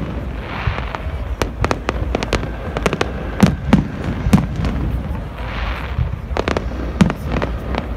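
Aerial fireworks bursting overhead: a steady run of sharp bangs and crackles, with three louder booms in quick succession about halfway through and another near the end. Twice a fizzing crackle swells up, about half a second in and again after about five seconds.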